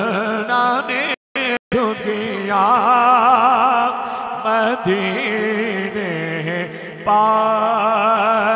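A man's voice chanting durood and salaam in a melodic, wavering line with long held notes. The sound cuts out twice for an instant a little after a second in.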